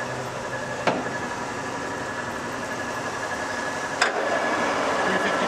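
TOS B40 toolroom lathe running under power, its motor and geared headstock giving a steady hum with a thin whine. Two sharp clicks come about a second in and about four seconds in, and after the second it runs louder as the spindle is shifted to a higher speed.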